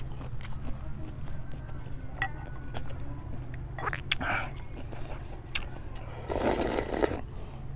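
A person eating instant noodles: sharp clicks of chopsticks against a ceramic bowl and chewing, then a slurp of broth from the bowl lasting about a second, starting a little after six seconds in.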